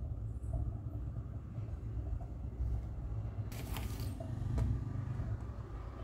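Steady low background rumble, with a short rustle of a newspaper sheet being pulled away from the board about three and a half seconds in.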